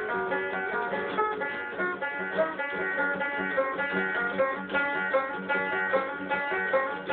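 Acoustic guitar and five-string banjo playing a tune together, a steady stream of quick plucked notes over strummed chords.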